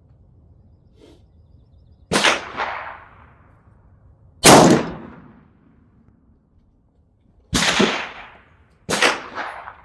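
Four gunshots on a shooting range, each a sharp crack with a short echoing tail, coming about two to three seconds apart; the second, about four and a half seconds in, is the loudest. They come too fast for one single-shot carbine, so more than one gun is firing.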